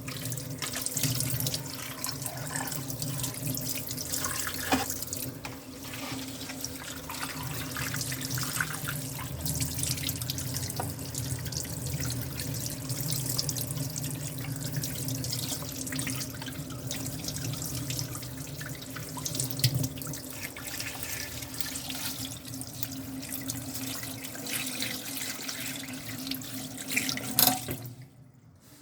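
Tap running into a sink as the plastic detergent drawer of a washing machine is rinsed of caked detergent, with a few knocks against the sink. The water cuts off suddenly near the end.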